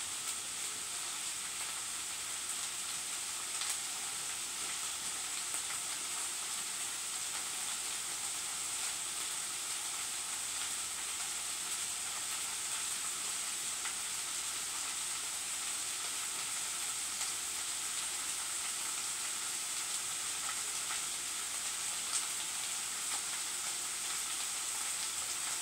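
Corned beef hash sizzling steadily in a frying pan on high heat, with a few faint pops now and then.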